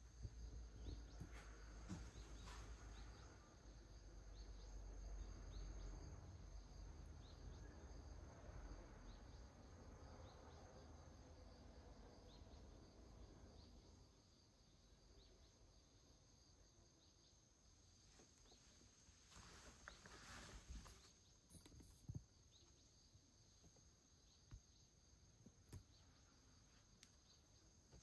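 Near silence: quiet room tone with a faint steady high tone and a low rumble that fades about halfway through, with a few soft clicks in the second half.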